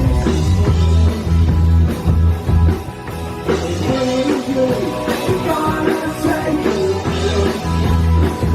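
A rock band playing a song live at full volume, with a heavy bass-and-drum pulse and a lead vocal, just after a "1, 2, 3, 4" count-in.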